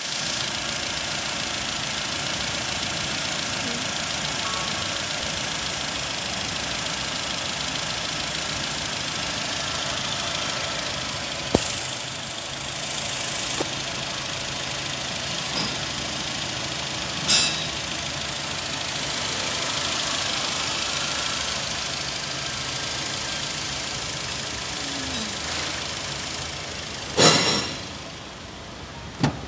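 Nissan X-Trail 2.5-litre four-cylinder petrol engine idling steadily, heard from the open engine bay. Near the end comes a loud thump, and the engine sound then drops away.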